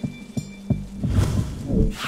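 Background music with a steady low beat of about three strokes a second under held high tones, and a loud rushing swell that builds in the second half.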